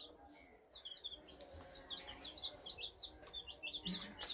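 Chicks peeping: a string of short, high chirps, several a second.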